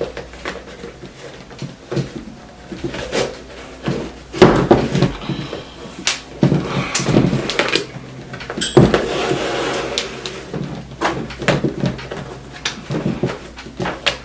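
Handling noise from unlacing a roller skate boot: laces drawn through the eyelets in short scrapes and rustles, with scattered knocks of the skate, the loudest about four and a half and nine seconds in.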